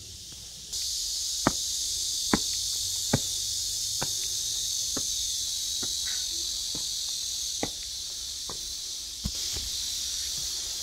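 Steady high-pitched drone of summer cicadas that starts abruptly about a second in, over regular footsteps on stone paving, a step a little less than every second.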